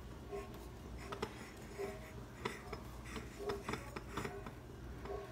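Faint scrapes and light clicks of a china tea-for-one set's saucer being turned on a granite countertop, over a low steady hum.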